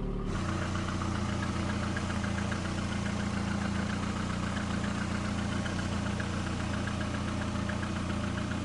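VAZ-2110-family (Lada) engine idling steadily after the water pump was replaced, with no hum or rustle from the new pump's bearing.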